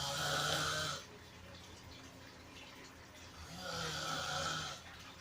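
A person snoring loudly: two long, rasping snores about three and a half seconds apart, one right at the start and one near the end, each lasting a little over a second.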